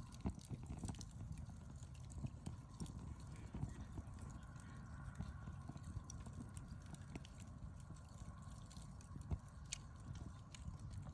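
Wood campfire crackling, with irregular sharp pops over a low steady rumble, one louder pop a little after nine seconds in.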